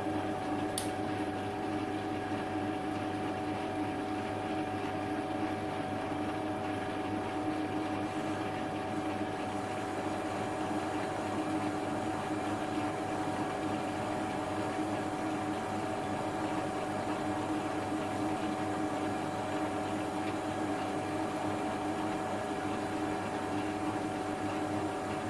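Small bench metal lathe running slowly at 125 RPM, a steady hum with a constant whine from its motor and gear train, while a high-speed-steel shear tool takes a very light finishing cut on low carbon steel. A short high tick about a second in.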